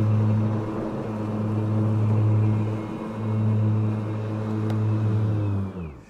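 Brushless electric motors of a Ryobi 80-volt zero-turn mower, humming steadily with a low electric whine. The hum dips briefly about halfway, then falls in pitch and winds down to a stop just before the end.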